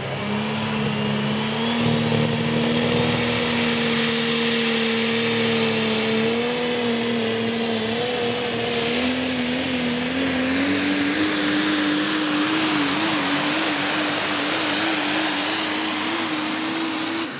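Diesel pulling pickup under full load dragging a weight-transfer sled. The engine note climbs slowly through the pull, over a high turbocharger whistle that rises steadily in pitch and then holds.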